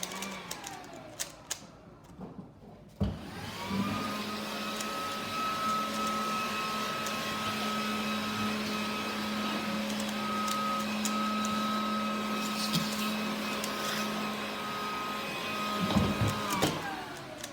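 An electric motor spins up with a rising whine about three seconds in, runs steadily for around thirteen seconds, and winds down with a falling whine near the end. A few light clicks come before it.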